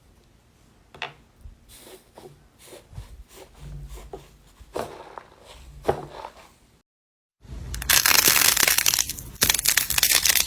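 Slime being handled by hand. For about the first seven seconds it gives soft, scattered clicks and small pops; then, after a brief cut, it gives a loud, dense crackling crunch as it is pressed and squeezed for the last three seconds.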